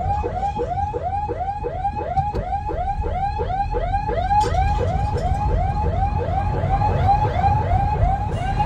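Electronic vehicle siren in a fast yelp: a rapidly repeating wail that rises and falls about three and a half times a second, heard from inside the car over the engine and road rumble.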